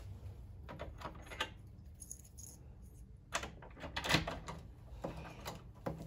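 Light metallic clicks and rattles of a Yale night latch being worked by hand as it is tested after a cylinder change, with a cluster of louder clicks about three and a half to four and a half seconds in.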